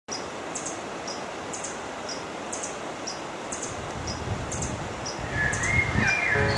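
River water rushing steadily under a high, regular chirp that repeats about twice a second. A single bird whistle slides in about five seconds in, and a low rumble of water grows in the last couple of seconds.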